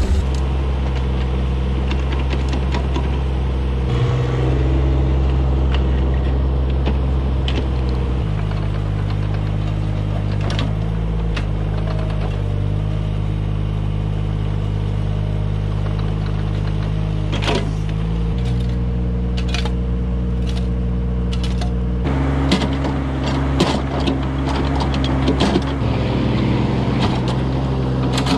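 Mini excavator's diesel engine running steadily under the work of digging, its note stepping to a different pitch a few times. Scattered clanks and knocks from the bucket and arm, more of them near the end.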